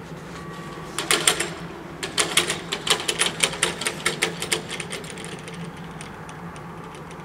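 Level-crossing barrier booms coming down onto their rests and rattling: a rapid clatter of sharp clicks, about five a second, starting about a second in and dying away by about five seconds in. A faint steady warning-bell tone stops just before.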